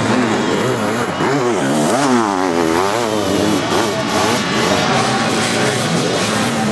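Sidecar motocross outfit engines racing, revving up and down with several quick rises and falls in pitch about a second to three seconds in.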